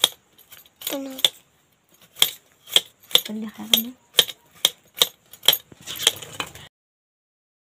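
A knife cutting into a large peeled taro root (gaderi), with sharp clicks of the blade about twice a second. A couple of brief voice sounds come in between, and the sound cuts off suddenly near the end.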